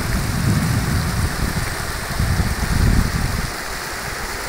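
Steady hiss of fast-flowing floodwater, with a heavy low rumble that drops away about three and a half seconds in.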